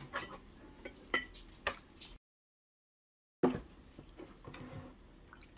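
Light, scattered clinks and taps of cutlery against dishes at a meal, with a stretch of complete silence a little over two seconds in.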